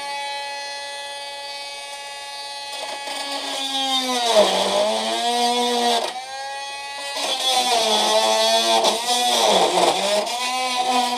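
A power tool's motor running at a steady pitch, then cutting into the air conditioner's metal pipes twice. Each cut drags the pitch down and adds a rasping noise, the first from about three seconds in and the second from about seven seconds to near the end.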